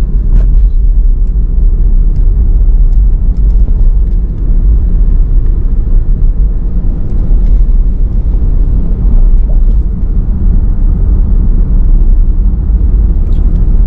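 Steady low rumble of a car being driven, road and engine noise heard from inside.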